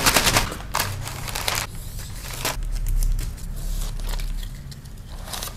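Plastic packaging crinkling and rustling in irregular bursts as items are handled and packed into a parcel.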